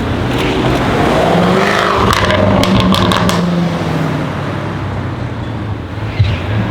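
Jaguar F-Type SVR's supercharged V8 accelerating, the engine note rising in pitch, with a quick run of sharp exhaust crackles and pops in the middle. The engine sound then dies away.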